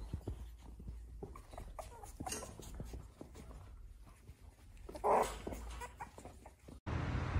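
Cavalier King Charles Spaniel puppies whimpering and yipping as they scramble about, with light clicks and scuffles of their paws. One louder yip comes about five seconds in.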